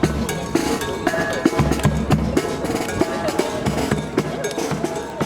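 Brass marching band playing, with drum beats prominent over held horn notes.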